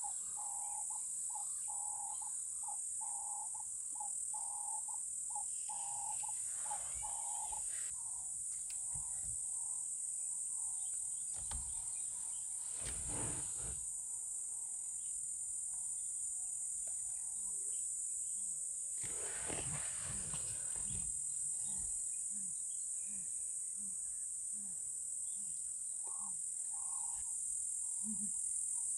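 Steady high-pitched shrilling of insects in the bushveld, with a softer call repeating about twice a second through the first several seconds.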